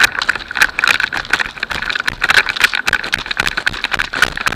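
Rapid, irregular clicking rattle over a steady whine, typical of airsoft electric rifles firing in full-auto bursts.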